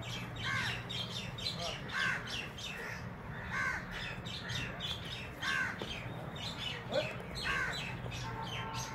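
Crows cawing over and over, about one or two calls a second, over a steady low hum.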